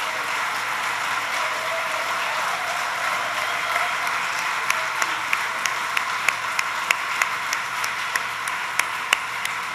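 Audience applauding steadily. From about halfway through, one pair of hands claps close to the microphone, sharp claps about three a second, over the crowd.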